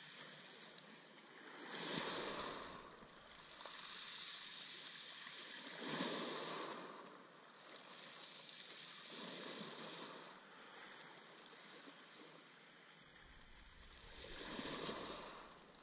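Small waves breaking and washing up a shingle beach, one surge about every four seconds.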